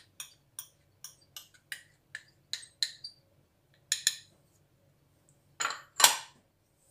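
A metal spoon clinking against a small measuring cup as cornflour is scraped and tapped out into a glass bowl, a quick run of light clinks at about two or three a second. After a short pause come two louder knocks near the end.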